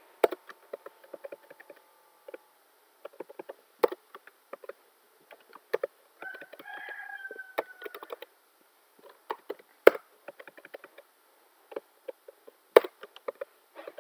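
Computer keyboard typing: irregular key clicks with a few harder strokes. About six seconds in, a drawn-out animal call lasting about a second and a half, falling slightly in pitch.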